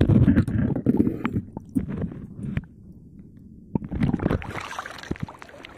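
Muffled water noise from a camera held underwater in shallow seawater: rumbling and churning with scattered knocks, which drops away about halfway through, then a rush of moving water shortly before the end.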